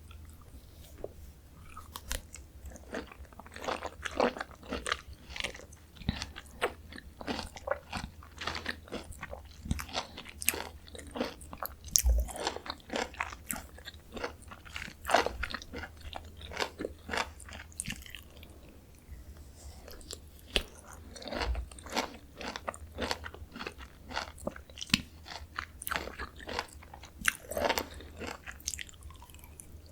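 Close-miked chewing of Jeju mandarin orange segments: a run of irregular wet clicks and crackles as the segments are bitten and chewed, coming in clusters with short lulls.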